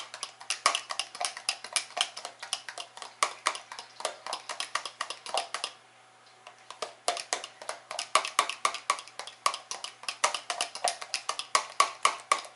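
Fork beating egg whites by hand in a plastic measuring jug: rapid clicking strokes against the jug, about five a second, stopping for a second about halfway and then going on. The unsweetened whites are being whipped to a foam.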